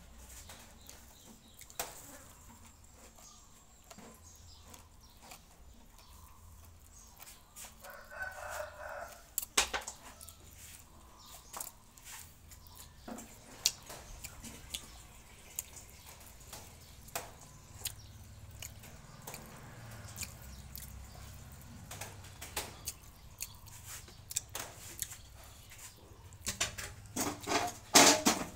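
Small clicks, smacks and chewing of a man eating sticky rice and food by hand, with a louder run of lip-smacking and chewing near the end as he puts a mouthful in. A bird calls once, briefly, about eight seconds in.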